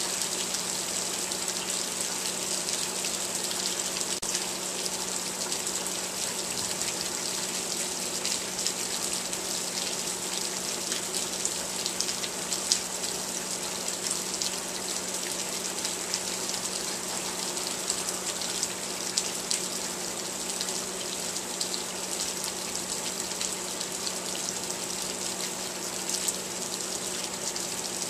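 Steady rain falling, with many small drop impacts pattering close by, over a steady low hum.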